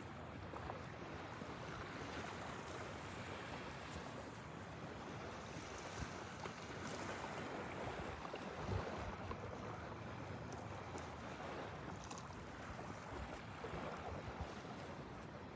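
Steady wind and small waves washing onto a sandy beach.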